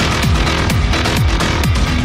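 Electronic dance music with a steady four-on-the-floor beat: a deep kick drum that drops in pitch on every beat, about two beats a second, with crisp hi-hats over it.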